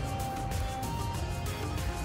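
Background music with soft held notes over a steady low bass.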